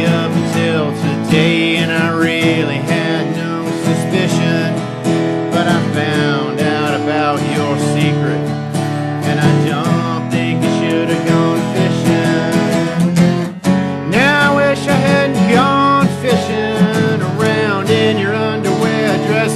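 Country-style band playing live, with strummed acoustic guitar under a bending melodic line.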